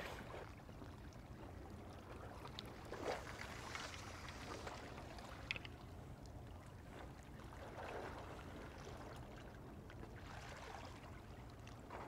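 Faint sea water lapping against the breakwater in soft swells every few seconds over a low steady rumble, with one small click about five and a half seconds in.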